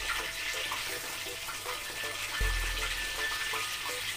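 Chicken pieces frying in hot oil in a wok, a steady sizzle. A short low rumble about two and a half seconds in.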